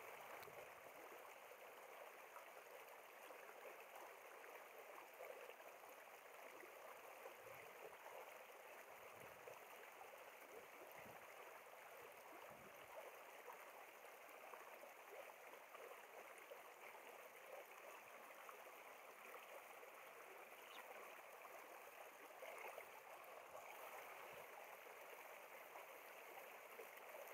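Faint, steady rush of running stream water.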